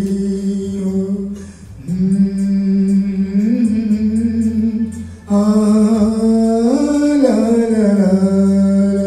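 A man singing solo into a handheld microphone, holding long drawn-out notes. There are three phrases with short breaks about one and a half seconds in and about five seconds in. The later phrases step up in pitch and then fall back.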